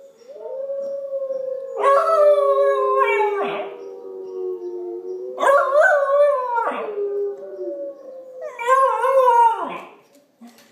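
Pembroke Welsh corgi puppy howling three times, each howl dropping in pitch at its end, over recorded wolf howls from a computer speaker that hold long steady notes underneath.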